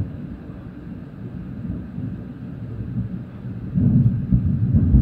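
Rolling thunder rumbling low, swelling louder about four seconds in.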